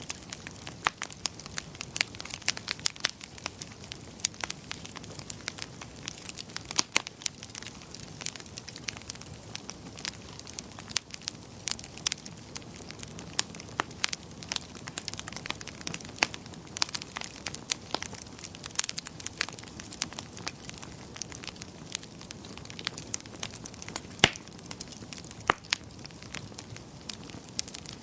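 Wood fire crackling in a fireplace: irregular sharp pops and snaps, some louder than others, over a soft steady hiss.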